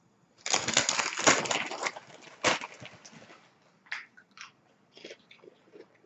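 A crisp cookie bitten and crunched close to the microphone: a dense crunching for about a second and a half, a sharp crack a little later, then quieter chewing clicks.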